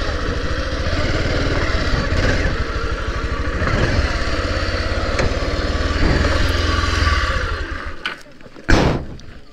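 Motorcycle engine running at low speed while the bike is eased into a parking spot. The engine is switched off about eight seconds in, and a single sharp clunk follows.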